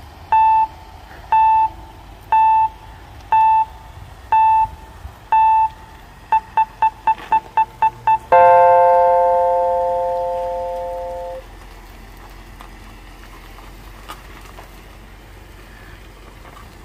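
A sequence of electronic beeps: six single beeps about a second apart, then eight quick beeps, then a long three-note tone that fades out over about three seconds, like a countdown timer.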